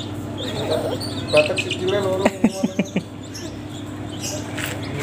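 Young green junglefowl chicks peeping as they feed, with a quick run of sharp, falling notes about two to three seconds in.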